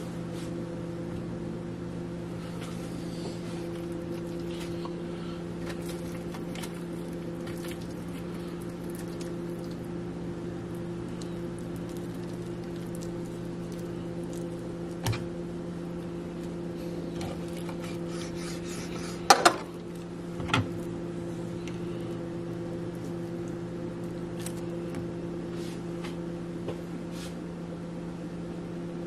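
Steady low hum under the quiet squish and scrape of raw chicken thighs being trimmed with a knife on a plastic cutting board, broken by a few sharp knocks, the loudest a quick pair about two-thirds through.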